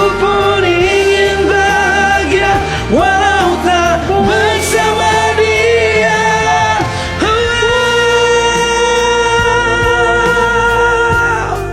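A singer's voice in wordless runs and glides over a pop ballad backing track, then one long held note of about four seconds that stops near the end.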